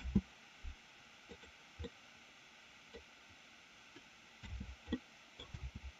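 Faint computer keyboard and mouse handling: a sharp spacebar press right at the start, then scattered soft clicks and desk thumps, bunched together near the end.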